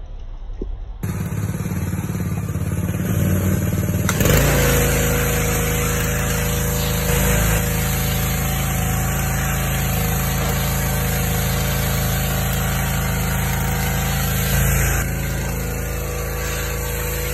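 Pressure washer running, its wand spraying a jet of water against a boat hull: a steady rushing hiss over a low hum that gets louder about four seconds in, when a steady whine joins it.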